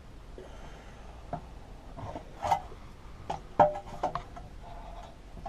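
Knocks and clicks of engine parts handled as the fuel tank is worked back onto a small Briggs & Stratton engine, about five in all. The loudest comes about three and a half seconds in and rings briefly.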